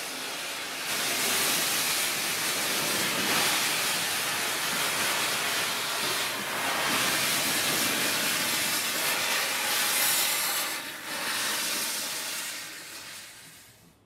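Steam hissing from the SNCB type 29 2-8-0 steam locomotive No. 29.013 as it eases slowly forward, its cylinder drain cocks open and venting at the wheels. The hiss is steady with slow swells and fades away near the end.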